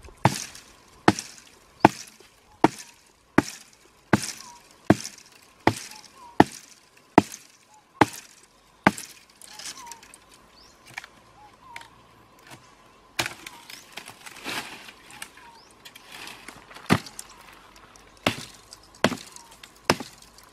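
A large knife blade chopping into a slender wooden sapling. Sharp strokes land evenly, about one every 0.8 s, for the first nine seconds. After that the strokes come fewer and less regular.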